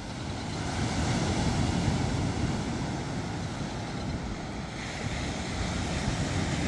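Ocean surf breaking and washing up a sandy beach, with wind buffeting the microphone; it grows louder about half a second in.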